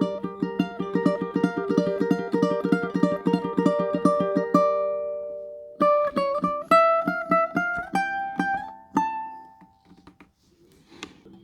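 Tenor ukulele played solo: a fast run of rapidly repeated plucked notes, then after a short pause a line of single notes climbing in pitch that rings out and fades near the end.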